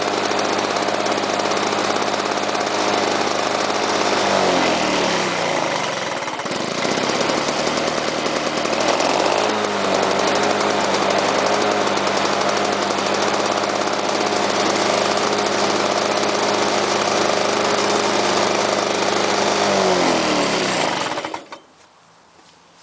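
1987 Lawn-Boy 5127's two-stroke F engine running after a flooded start. About four seconds in its speed sags, and it picks back up around nine seconds. Near the end it winds down and stops. The uneven running shows it still needs minor tweaking.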